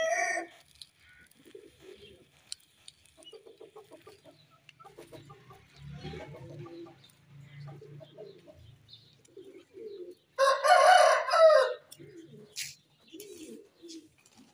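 A rooster crows loudly once, about ten seconds in, for about a second and a half, with the tail of an earlier crow right at the start. Soft chicken clucking between the crows.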